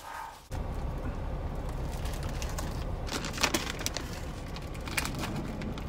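Heavy rain on a truck cab with a steady low rumble of thunder, starting suddenly about half a second in, with a few sharp crackles over it.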